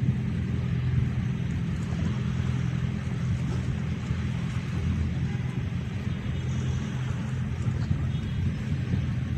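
Steady low drone of a ferry's engines, a few even tones that hold unchanged, with a steady hiss of wind and water over it.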